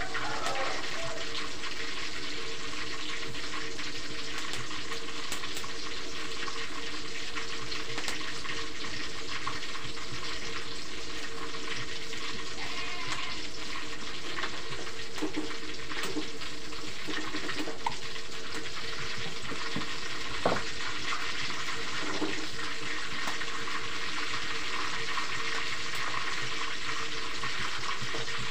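Tofu frying in hot oil in a wok: a steady sizzle, with a few clicks of a metal spatula against the pan.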